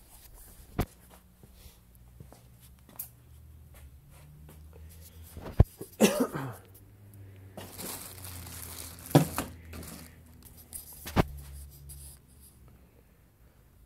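Plastic-bagged parts being handled and set down: crinkling plastic with several sharp knocks and clicks.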